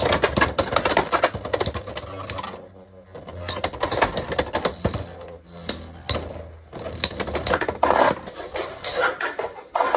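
Beyblade X spinning tops clashing in a plastic stadium: a dense, rapid clatter of hits and rattling against each other and the stadium's toothed rail, with a brief lull about three seconds in.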